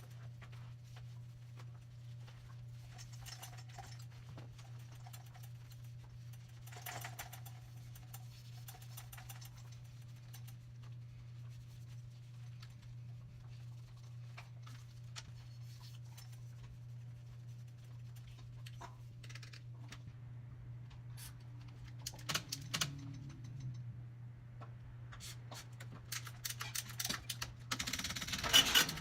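Scattered light clicks and taps of hands and tools working on a mountain bike, over a steady low hum. A few louder knocks come past the middle, and near the end a fast run of clicking sets in.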